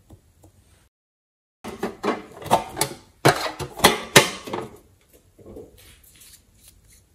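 Hard clicks, knocks and clatter as a house-shaped metal pencil box is handled and its lid worked, loudest for about three seconds, then fainter clicks near the end as a lip gloss tube is handled.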